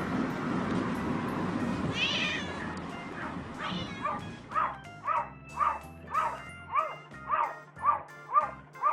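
A steady rushing noise fades out while a cat meows twice with falling pitch, then music comes in with a repeated meow-like call about twice a second.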